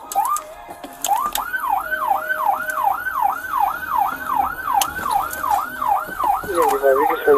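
Police car electronic siren: a few short chirps, then about a second in a fast yelp that sweeps up and down about two and a half times a second. A lower wavering tone joins near the end.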